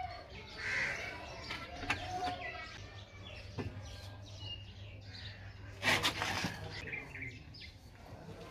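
Birds chirping in the background, with two sharp clicks and a brief burst of noise about six seconds in.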